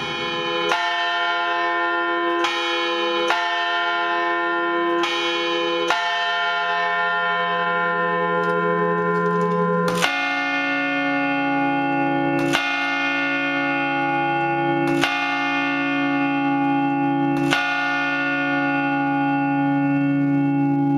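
Church bells ringing. A higher bell is struck about five times at uneven spacing. About ten seconds in, a deeper bell takes over, struck four times about every two and a half seconds, each stroke ringing on into the next.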